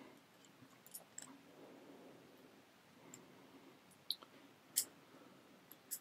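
Faint, scattered clicks from a Tesa Assa Abloy four-wheel combination padlock as its number wheels are turned and a thin metal probe is worked between them to feel for the gaps. There are about five sharp clicks, the loudest a little before the end, over a faint rustle of handling.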